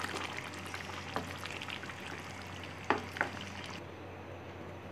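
Wooden spoon stirring chicken and vegetables in a simmering tomato sauce in a pan, with a steady sizzle and a few sharp knocks of the spoon against the pan. The sound drops quieter near the end.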